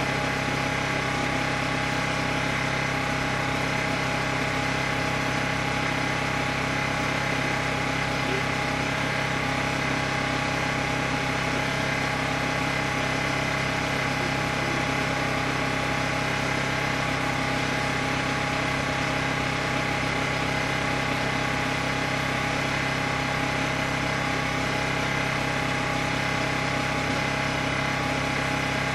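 An engine idling steadily, a constant drone whose pitch and level do not change.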